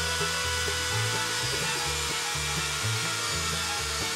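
Bench drill press running and boring a screw hole through a nylon block, a steady motor whine with cutting hiss, under background music with a stepping bass line.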